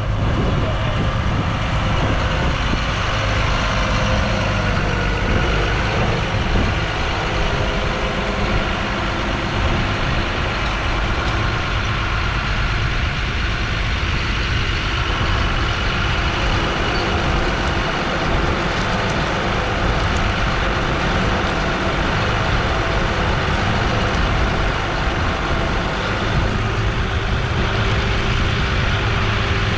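Claas Arion 650 tractor's 6.8-litre six-cylinder diesel engine running steadily as it draws a Lemken five-furrow reversible plough across the field.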